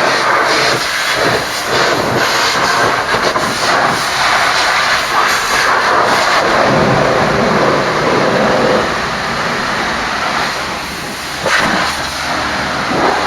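High-pressure water spray washing a truck: a loud, steady rushing hiss that swells and fades as the spray moves over the vehicle.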